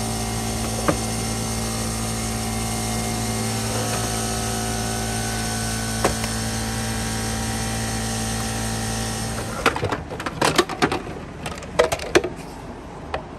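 Compressed air blowing dust out of a vacuum cleaner's plastic dirt canister: a steady hiss with a hum under it, cutting off suddenly about ten seconds in. Then a few clicks and knocks as the plastic canister is handled.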